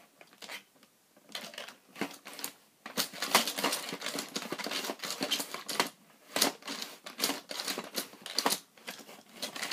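Rock 'Em Sock 'Em Robots plastic boxing toy clattering as the robots are punched furiously: a dense, irregular run of plastic clicks and clacks that starts about a second in and goes on, with brief let-ups.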